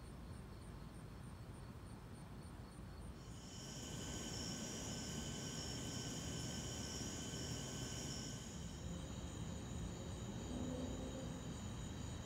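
Crickets singing: at first a high pulsed chirp at about four a second, then from about three seconds in a louder, steady high trill that changes again near nine seconds, over a low rumble.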